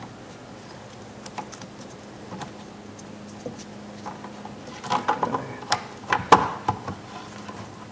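Small plastic clicks and rubbing from handling a headlight's turn-signal bulb socket while a new rubber gasket is fitted on it. About five seconds in comes a quick run of sharper plastic clacks as the socket knocks against the headlight housing, loudest near the end.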